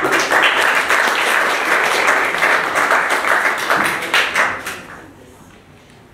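Audience applauding, the clapping fading away about five seconds in.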